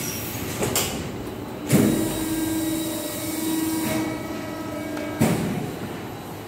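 A fusing machine's motor starts with a clunk, runs with a steady hum for about three and a half seconds, and stops with another clunk.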